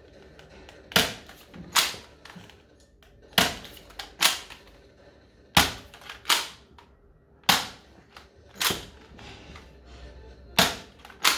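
Toy foam-dart blaster being worked and fired again and again: sharp plastic snaps, mostly in pairs less than a second apart, about every two seconds.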